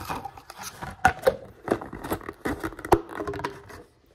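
Clear plastic food containers and lids being handled and stacked: a quick run of clicks, knocks and crackles of thin plastic that stops just before the end.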